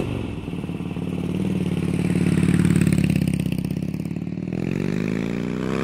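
Harley-Davidson V-twin motorcycle engine running with a quick pulsing beat. Its revs swell about two to three seconds in, ease off, then climb again near the end.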